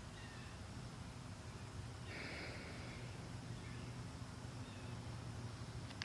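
Quiet outdoor ambience: a low steady hum, a few faint short high tones, and a brief soft hiss about two seconds in.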